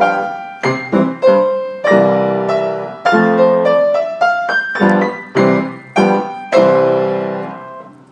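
Acoustic piano being played: a run of struck chords, each ringing and fading. A final chord is held and dies away near the end as the piece finishes.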